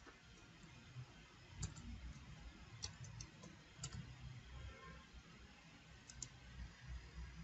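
Faint, irregular clicks of a computer keyboard and mouse as code is copied and typed: a dozen or so scattered keystrokes and clicks, some in quick little clusters.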